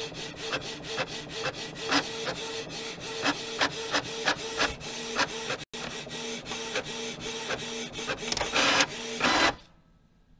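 Printer running: a fast, uneven clatter of clicks over a steady motor hum, cutting off about nine and a half seconds in.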